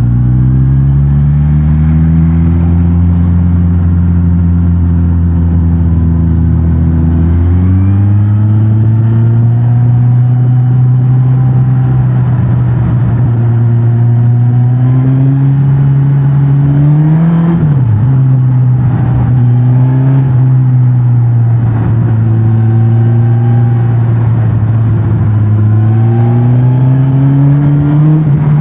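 Suzuki GSX-S1000GT's 999 cc inline-four running through its stock exhaust under way, the engine note rising and falling with throttle and gear changes. There is a quick rise and sharp drop in pitch about seventeen seconds in, and the pitch climbs again near the end.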